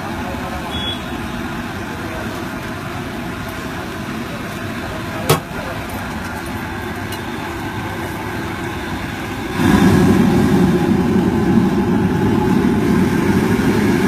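Steady street traffic noise, with a sharp click about five seconds in. About ten seconds in a louder low rumble starts suddenly and lasts about four seconds.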